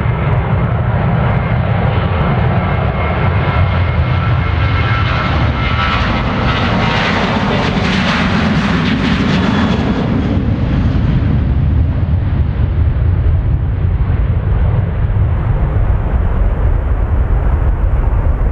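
Boeing 737-800's CFM56-7B turbofan engines at takeoff thrust during the takeoff roll: a steady deep rumble with a high fan whine. It swells to its loudest, with a rising hiss, as the jet passes about eight seconds in, then eases as it rotates and lifts off near the end.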